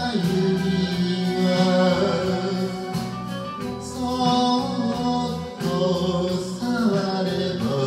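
Man singing an enka song into a microphone over a recorded karaoke backing track.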